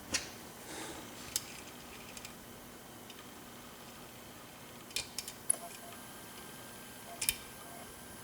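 Faint, scattered small metal clicks from lock picks and a tension wrench working the pins inside a Corbin Russwin mortise cylinder: a handful of sharp ticks over several seconds, the loudest about five and seven seconds in.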